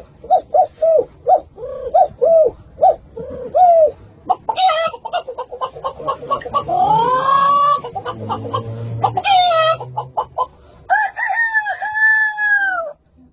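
A man imitating a chicken with his voice: a run of short clucks, then a long rising crow like a rooster's about halfway through, then two more drawn-out calls near the end.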